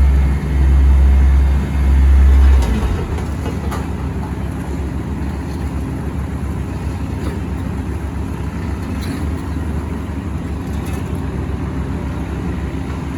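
Diesel engines of heavy asphalt-paving machinery running. A deep, loud rumble with short dips stops about two and a half seconds in, leaving a steady engine drone.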